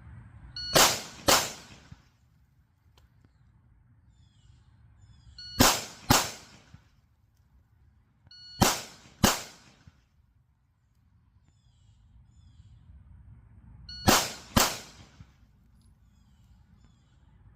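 Four pairs of pistol shots, the two shots of each pair about half a second apart, each pair set off by a short beep from a random shot timer just before the first shot. Birds chirp faintly between the pairs.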